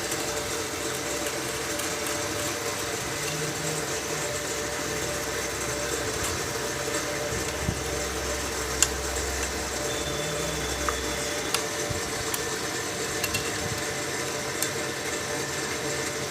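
Steady mechanical hum and hiss of workshop background noise, with a few scattered light clicks of hand tools as the fuel injectors are taken off the engine.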